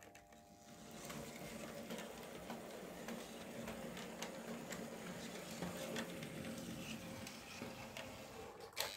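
Märklin model steam locomotive running along the track with its wagons: a steady small-motor hum with fine ticking of wheels on the rails, getting louder about a second in. A sharp click near the end.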